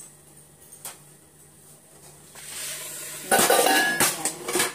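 Kitchen dishes and utensils clattering and clinking as they are handled, in a loud burst of knocks with a brief ring near the end, after a soft hiss.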